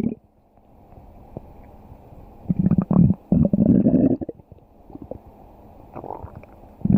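Stomach growling: a loud, gurgling rumble about two and a half seconds in that breaks briefly and goes on for about two seconds, then faint gurgles, and another rumble starting at the very end.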